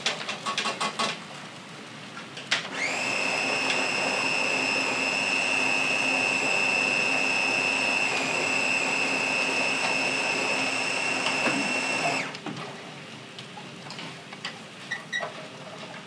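Ninja compact chopper's motor running: it spins up with a rising whine about two and a half seconds in, runs steadily for about nine seconds, then stops. A few short clicks and knocks come before it.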